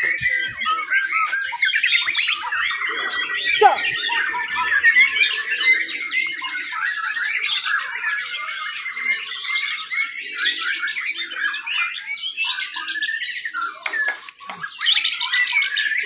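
Several caged white-rumped shamas (murai batu) singing at once in competition: a dense, unbroken mix of overlapping whistles, trills and fast repeated notes.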